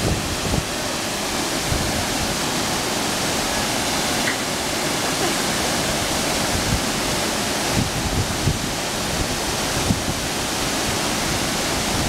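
Wide curtain waterfall pouring into a plunge pool: a steady, even rush of falling water.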